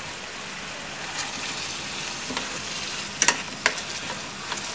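Beef and bell pepper chunks sizzling in hot oil in a wok over a fairly high flame, a steady hiss. Sharp clicks of chopsticks against the pan as they stir, the loudest a quick pair about three seconds in.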